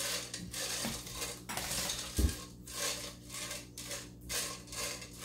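Silicone spatula stirring Skittles candies in a pot with oil, the candies rattling and scraping against the pot in strokes about twice a second. There is one dull knock a little over two seconds in.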